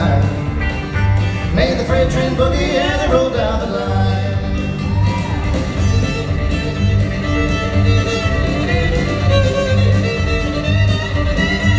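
Country band playing an up-tempo instrumental boogie: fiddle over acoustic and electric guitars, with a steady walking pulse from upright bass and drums.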